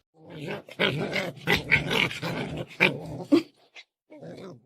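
A dog vocalizing in a quick run of short, uneven sounds, with a break about three and a half seconds in before a few more.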